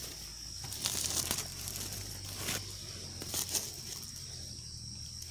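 Several short crinkling rustles, about a second in, again a little past halfway and shortly after, over a steady high-pitched insect drone.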